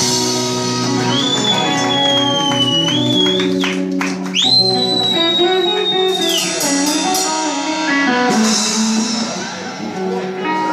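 Live band with electric guitar, bass guitar and drum kit. The electric guitar holds two long high notes that bend in pitch, over a steady bass line and drums.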